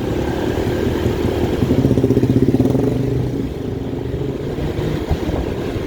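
Motorcycle engine running on the move, growing louder for about a second around two seconds in, then settling back to a steady run.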